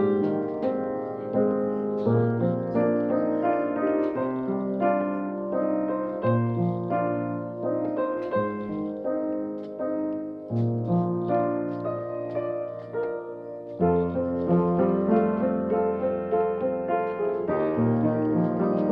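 Piano playing a slow instrumental piece: low bass notes that change every couple of seconds, with sustained chords and melody notes above them.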